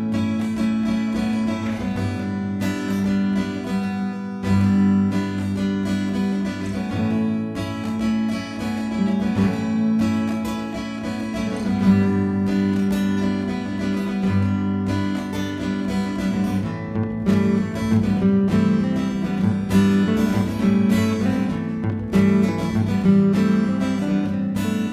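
Background music: an acoustic guitar strummed in a steady rhythm.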